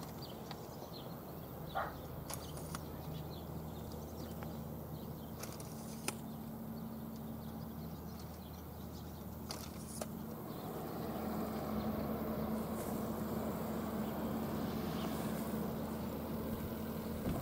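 A vehicle's rumble grows louder from about ten seconds in, over a steady low hum, with a few sharp clicks in the first half.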